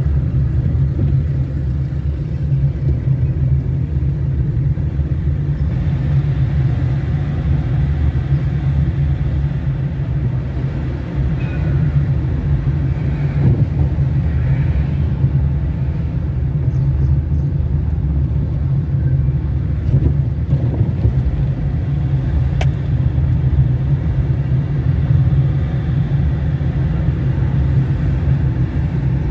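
Car driving on a city street: a steady low rumble of engine and tyre noise, with a single sharp click about two-thirds of the way through.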